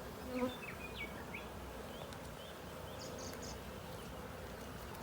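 Honeybee colony humming steadily around an opened hive during a frame inspection.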